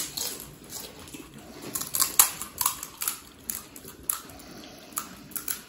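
Crisp hollow puri shells for gupchup (pani puri) being cracked open with the fingers and stuffed with masala: irregular sharp cracks and clicks, about two a second, with a cluster about two seconds in.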